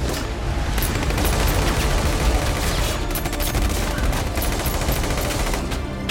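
Heavy automatic rifle fire: many guns shooting at once in a rapid, sustained fusillade of shots.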